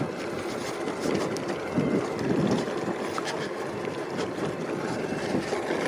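E-bike rolling over a cracked, block-jointed concrete farm track: steady tyre and road noise with scattered light rattles and knocks from the bike.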